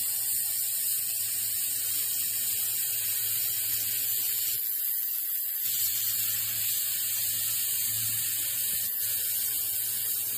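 A 2000 W handheld fiber laser welder running a bead along a steel fillet joint: a steady hiss with a low hum underneath, the hum dropping out for about a second midway, and the whole sound cutting off suddenly at the end as the weld stops.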